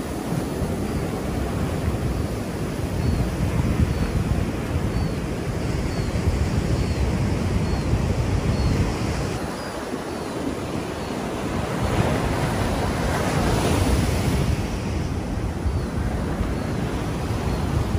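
Ocean surf breaking and washing up the sand, with wind buffeting the microphone; a wave swells louder about two-thirds of the way through.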